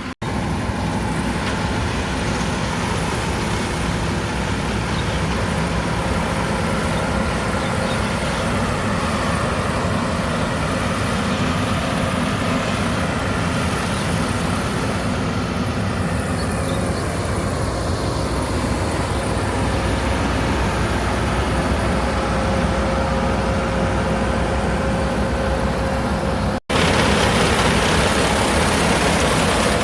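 Rice combine harvester engine running steadily under load, with a constant low hum. It drops out for an instant near the start and again near the end, coming back slightly louder.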